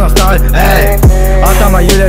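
Hip-hop track: rapped vocals over a steady deep bass, with a booming kick drum that drops in pitch about a second in.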